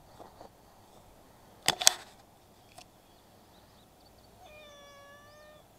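A domestic cat meowing once near the end, one long call held at a level pitch for about a second. About two seconds in, two sharp clicks, the loudest sounds here.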